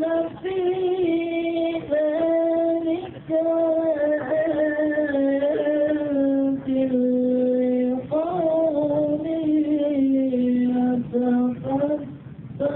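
A solo voice chanting into a microphone through a loudspeaker, in long held, wavering notes that slowly sink and rise again, with short breaths between phrases: the sung recitation of a Betawi palang pintu ceremony.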